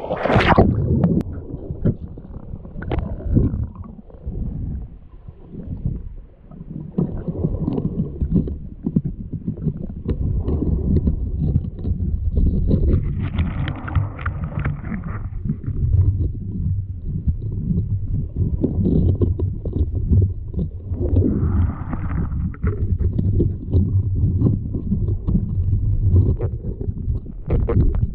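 Sea water sloshing and rumbling, heard muffled through a camera held underwater while a snorkeller swims, with a sharp splash about half a second in as it goes under.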